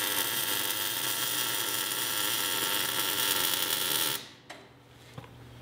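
MIG welder arc crackling and hissing steadily as a steel motor-mount plate is tack-welded in place, cutting off abruptly about four seconds in.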